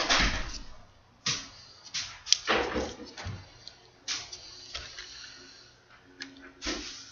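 Folded paper units of a 3D origami model rustling and crinkling in the hands as pieces are pushed into place. It comes in short, irregular bursts, with a sharp click a little past two seconds in.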